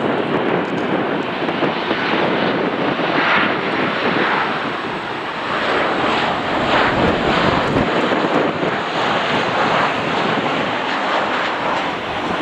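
Ryanair Boeing 737-800 airliner on final approach to land, its jet engines making a steady, loud rushing noise.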